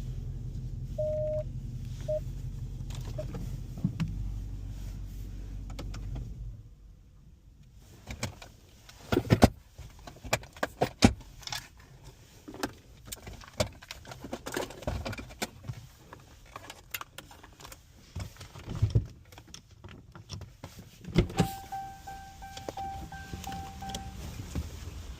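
A car engine running with a steady low hum, then switched off about six seconds in. Sharp clicks, knocks and jingling follow, typical of handling keys, door and parcels inside a car, with a steady electronic tone for a few seconds near the end.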